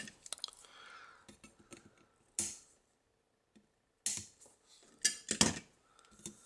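Quiet handling of a small circuit board: a few light clicks and short scraping rustles as a soldered capacitor lead is trimmed off with wire cutters and the board is moved.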